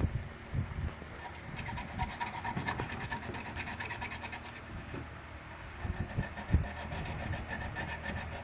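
Scraping and rubbing with a few light knocks, the loudest cluster about six seconds in, over a steady low hum.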